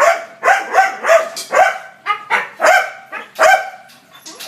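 Dogs in kennel cages barking repeatedly, about two barks a second, seven or so in a row, with the last one fainter.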